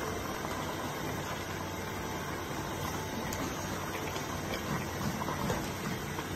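Pot of soup boiling hard on a gas burner: a steady hiss and bubbling, with a few faint clicks as a metal spoon goes into the pot.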